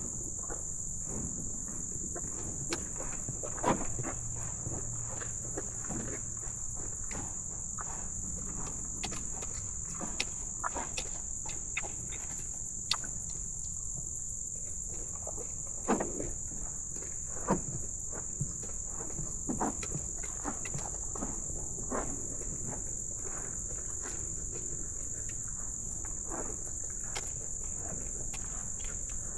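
Steady high-pitched chorus of crickets, with scattered soft knocks and thumps.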